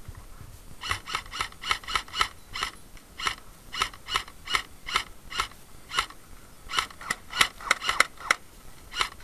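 Airsoft gun firing single shots in quick succession, about three sharp cracks a second with uneven gaps, starting about a second in and going on for the rest of the stretch.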